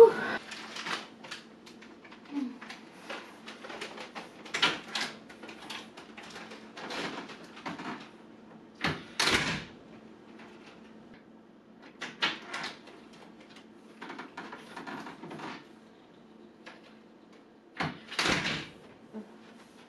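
Scattered thumps, knocks and rustling of someone moving about a room and handling things, the loudest about nine and eighteen seconds in, over a steady low hum.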